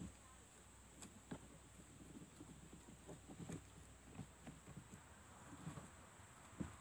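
Faint scratchy rustles and small irregular clicks of a twisted synthetic rope being worked by hand, its strands twisted and tucked through one another in a splice.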